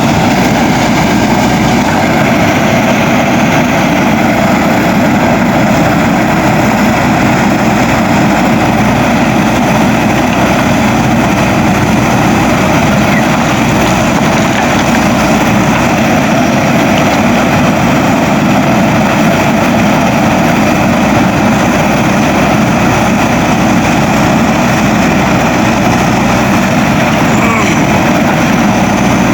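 Diesel engine of a JCB 3DX Super backhoe loader running steadily at a constant, loud level.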